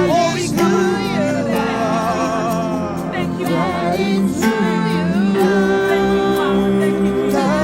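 Gospel worship singing: several voices hold long, wavering wordless notes with vibrato over steady sustained tones.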